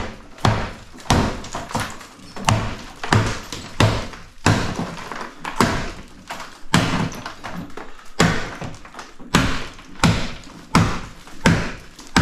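Hammer blows against a tiled wall sheet, a steady run of sharp knocks about two a second, breaking the tiles and sheeting off the wall during demolition.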